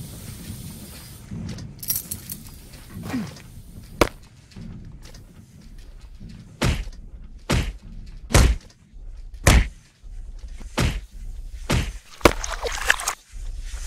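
Sound-effect punches: six heavy thuds, each cut off short, about a second apart, after a single sharp click. A brief high metallic jingle follows near the end.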